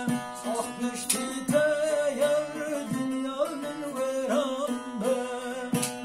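A man singing an ornamented, wavering melody while playing a bağlama (long-necked saz lute). Its plucked strings ring a steady low tone beneath the voice.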